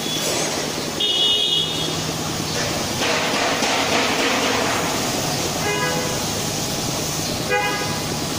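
Pressure washer spraying water onto a car's wheel and bodywork: a steady hiss of spray over the machine's hum. Two short toots sound in the second half, with a brief high tone about a second in.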